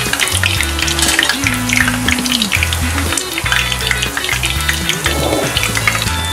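Shiso leaf tempura deep-frying in hot oil, with steady crackling and sizzling.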